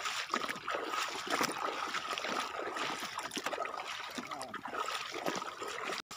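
Shallow seawater splashing and sloshing in irregular swishes.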